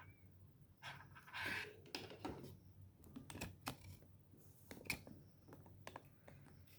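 Faint scattered clicks and brief rustles of small parts being handled: a jumper wire being fitted into the Arduino Uno's pin header.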